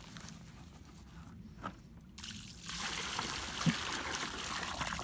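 Water pouring and sloshing out of a container into a pond, starting about two seconds in and running steadily: caught fish being tipped in to stock the pond.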